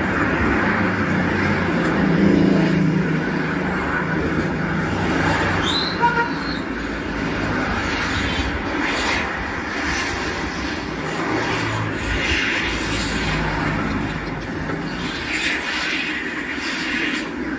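Road traffic on a city street: cars driving past with engine hum and tyre noise, loudest in the first few seconds. A brief high tone and a knock sound about six seconds in.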